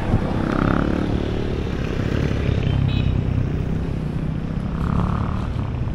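Street traffic: engines of passing motor vehicles making a steady low rumble that swells and eases a couple of times.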